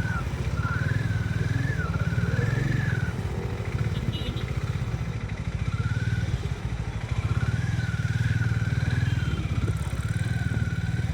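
Harley-Davidson X440's single-cylinder engine running steadily while riding, with road and wind noise. Twice a wavering high whistle-like tone rises and falls over it.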